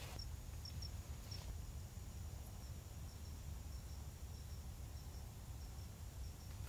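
Quiet outdoor ambience: faint, short, high chirps from a small animal, repeating irregularly, over a low steady rumble.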